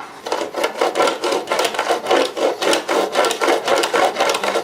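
Rapid back-and-forth scraping strokes on wood, about four a second, starting just after the beginning and keeping an even rhythm.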